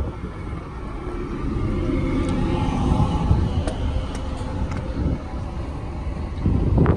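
Wind buffeting the microphone on a ferry's open upper deck, a steady low rumble with a few light ticks a little past halfway.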